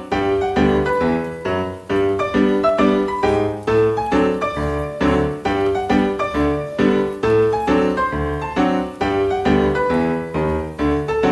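Background instrumental music, a steady run of notes with a bass line under it.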